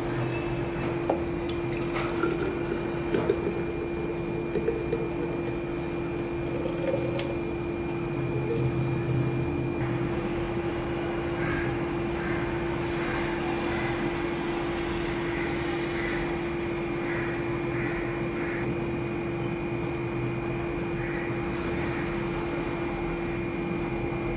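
Thick, creamy lassi pouring from a jar into clay cups, over a steady low hum. A few light knocks come in the first few seconds.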